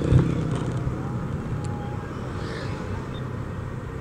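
Honda Vario 125 scooter's single-cylinder engine running at a steady cruise with road noise while riding; the engine note eases a little over the first couple of seconds.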